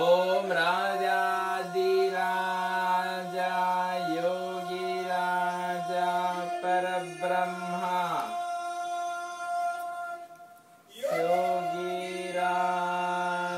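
A devotional chant sung in long, held phrases. One phrase ends with a falling glide about eight seconds in, and after a short pause a new phrase begins.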